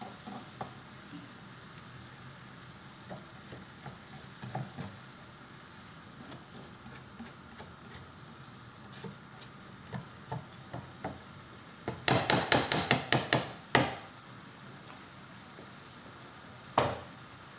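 A spoon stirring dal in a frying pan, with scattered light scrapes and taps against the pan. About twelve seconds in comes a quick run of loud clinks lasting about two seconds, and there is a single knock near the end.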